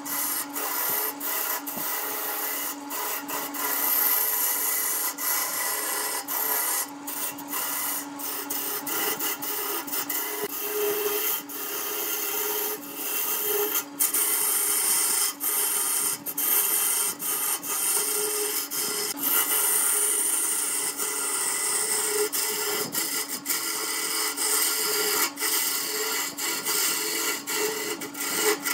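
Wood lathe running while a handheld turning tool cuts into a spinning vase blank of glued-up wooden panels: a steady hissing scrape of shavings over the lathe's motor hum, broken many times by brief gaps.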